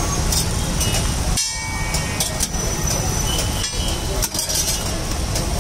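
A metal spatula scraping and knocking on a large flat iron tawa griddle: scattered clicks and short high scrapes over a steady low rumble.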